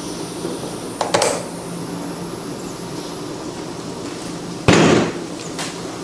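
Handling noises while working on a lawn mower: a short clack about a second in, then a loud sharp clunk just before five seconds, over a steady low background hum.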